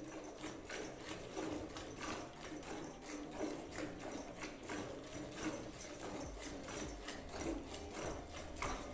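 Cow being milked by hand into a steel pail: milk squirts from the alternating teats in a steady rhythm of about three strokes a second.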